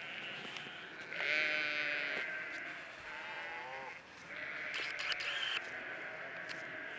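Flock of sheep bleating, several calls one after another. The loudest comes about a second in, and one wavers up and down in pitch around three seconds in.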